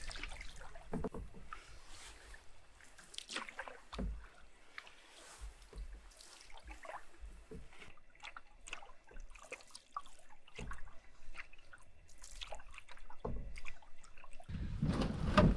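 Canoe paddling: paddle strokes in the water with dripping and light splashing, and a few dull knocks. Wind buffets the microphone near the end.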